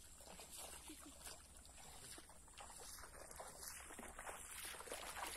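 Faint, irregular sloshing and small splashes of shallow water.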